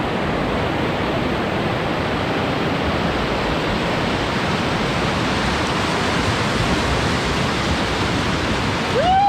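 River water rushing steadily around a raft, an even hiss with no paddle strokes or speech.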